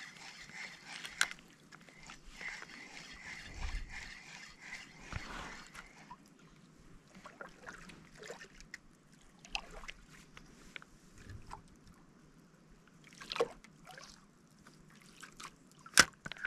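Faint water lapping and trickling against a small outrigger boat, with a few sharp knocks, the loudest near the end.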